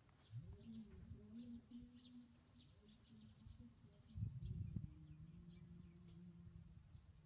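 Faint insects chirping in a steady high trill, over low background sounds, with a brief muffled bump about four seconds in.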